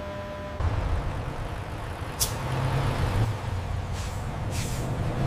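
Semi-truck engine running with a steady low rumble that starts about half a second in. A sharp click comes about two seconds in, and a short air-brake hiss near the end.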